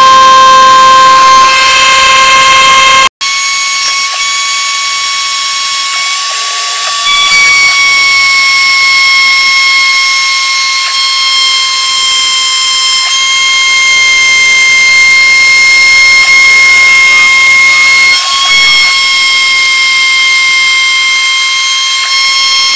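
Router spindle on a homemade CNC machine running at high speed with a loud, steady whine while its bit mills pockets into a wooden board. The sound breaks off for an instant about three seconds in, then carries on at a slightly different pitch.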